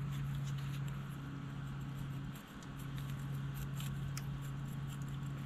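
Faint small clicks and taps of carburetor parts being handled, over a steady low hum that drops out briefly about halfway through.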